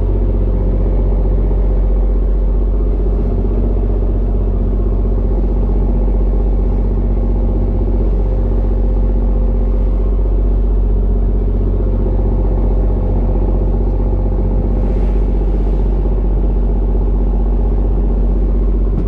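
Fishing boat's engine running at a steady speed, a loud, unchanging low drone.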